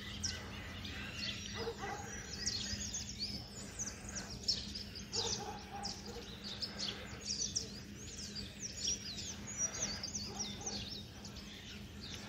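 Several birds chirping and singing, with many short high calls overlapping throughout, over a faint steady low hum.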